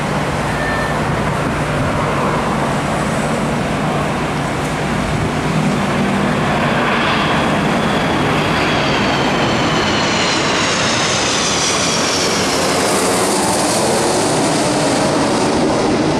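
Jet airliner with two rear-mounted engines, gear down on landing approach, passing low overhead: a loud, steady jet rumble. In the second half its engine whine slides down in pitch as it passes.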